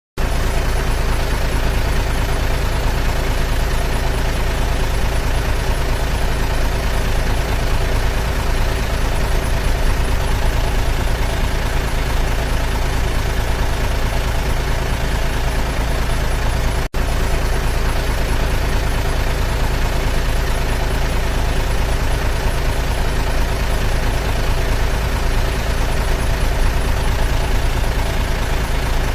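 Heavy dump truck engine running steadily, with a brief dropout about two-thirds of the way through.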